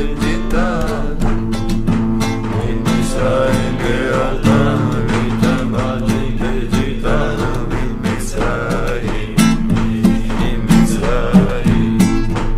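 Strummed acoustic guitar with men singing a song along with it.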